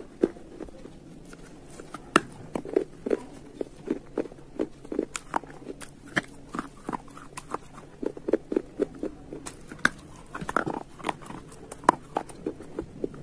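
Slate pieces being bitten off and chewed close to the microphone: a steady run of short, sharp, dry crunches, about two or three a second.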